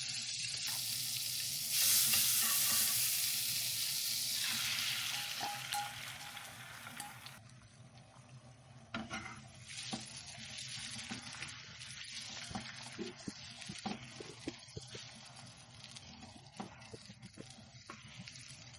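Food frying in a pan, sizzling loudly from about two seconds in, then dying down after about seven seconds to a quieter sizzle with light taps of a utensil against the pan.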